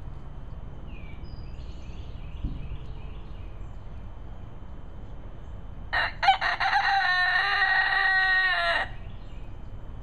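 Silkie rooster crowing once, about six seconds in: a few short notes, then one long held call of about three seconds. Faint chirping calls come a few seconds earlier.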